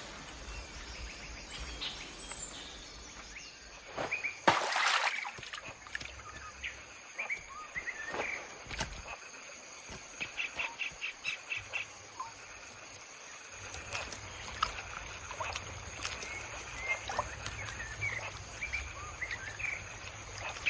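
Tropical forest ambience: scattered bird chirps and calls over a steady, high insect whine. There is a brief loud rush of noise about four and a half seconds in, and a fast run of repeated chirps about ten seconds in.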